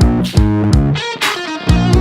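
Intro music: electric guitar and bass over a steady, driving beat.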